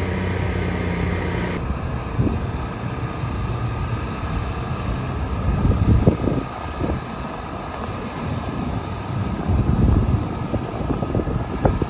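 Road traffic noise with wind gusting on the microphone, swelling and easing. For the first second and a half a steady machine hum runs underneath and then cuts off.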